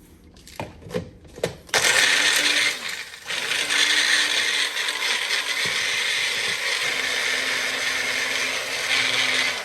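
Bullet-style personal blender: a few clicks as the cup is set on the base, then the motor runs steadily for about eight seconds, with a brief dip about three seconds in, chopping a wet mix of scallion, onion, scotch bonnet, garlic, ginger and allspice into green seasoning. It cuts off at the end.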